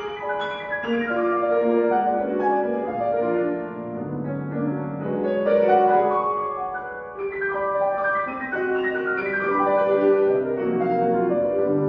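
Piano being played: a continuous passage of many overlapping notes.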